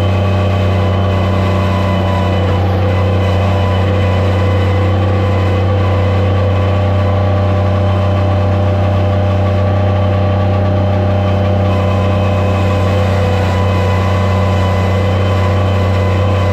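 Skid steer loader's engine running loud and steady at a constant speed.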